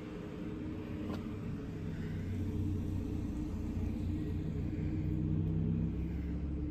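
Low mechanical rumble with several steady humming tones from machinery behind a wall vent grille, growing louder over the first couple of seconds and then holding.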